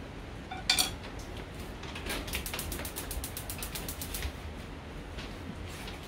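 A single sharp click, then a fast, even run of light clicks, about seven a second, lasting about two seconds.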